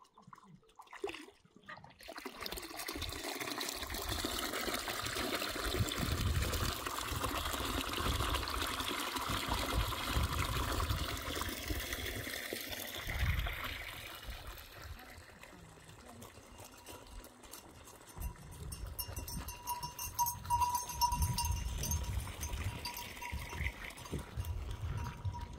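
Water trickling and splashing from a pipe into a concrete livestock trough while sheep drink at it. About halfway through, the water sound fades and scattered small clicks take over as the sheep walk off over gravel, with a thin steady tone near the end.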